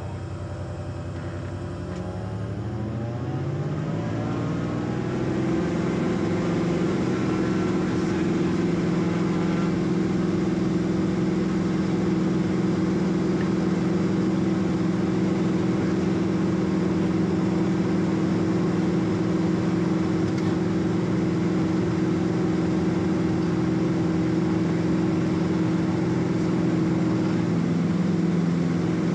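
Cessna P210 Centurion's turbocharged six-cylinder piston engine and propeller, heard inside the cabin, rising in pitch and loudness over about five seconds as the throttle is opened, then running steadily at high power.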